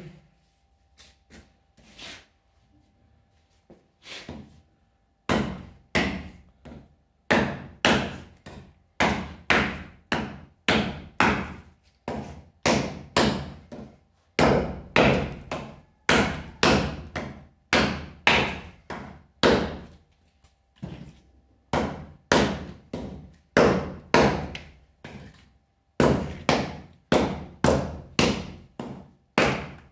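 A medium-sized bushcraft knife chopping into a tree branch resting on a wooden stump: a run of sharp wooden knocks, about two a second. A few light taps come first, the steady chopping starts about five seconds in, and there is a short pause past the middle.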